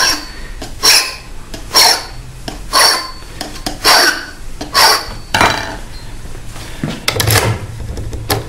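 Hand file strokes on a key blank held in grips, about one stroke a second, each with a short metallic ring: the cuts are being deepened where the impression marks showed. Near the end, quick light clicks and rattling as the key is worked in the euro profile cylinder lock.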